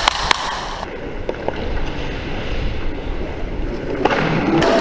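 Roller hockey in play: a steady rolling and rushing noise from a skater moving on inline skates, with two sharp stick clacks near the start.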